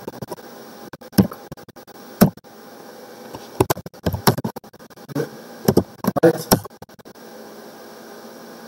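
Computer keyboard being typed on: scattered single key clicks and short runs of taps with pauses between.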